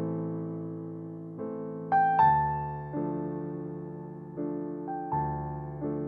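Soft, slow solo piano music: chords struck one after another and left to ring and fade, with a few brighter high notes.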